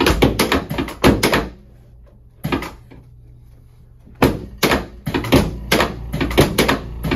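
Chiropractic drop table's section clunking down under quick hand thrusts on the low back and pelvis: a rapid run of sharp knocks, one more knock after a pause, then another run of knocks from about four seconds in.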